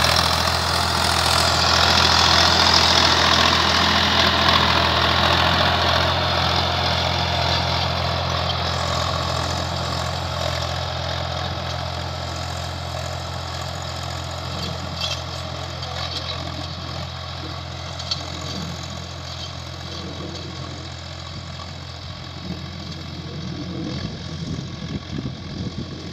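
Swaraj 855 tractor's three-cylinder diesel engine running steadily under load while pulling a cultivator through the soil. It grows fainter as the tractor moves away.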